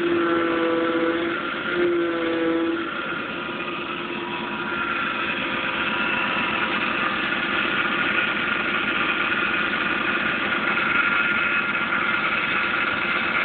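Idling car engine with the steering wheel being turned. There are two short whines in the first three seconds, then a steady hum with thin high whining tones that grow louder in the second half.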